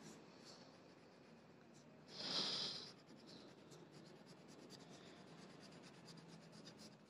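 Wax crayon rubbing on paper as an area is shaded in: faint scratchy strokes that come quickly one after another in the second half. A brief louder hiss comes about two seconds in.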